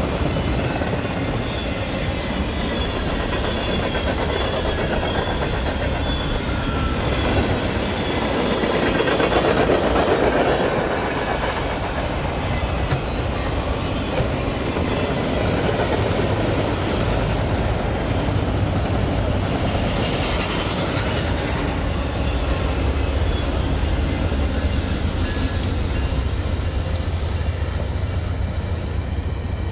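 Freight train cars rolling past at track side, wheels clicking over the rail joints over a steady low rumble, louder for a few seconds about nine seconds in.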